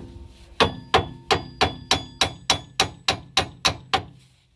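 Hammer striking the front sway bar of a 2007 Mazda 3, about a dozen quick metal blows at roughly three a second, each ringing briefly. The hammering knocks the sway bar bracket into line with its bolt hole.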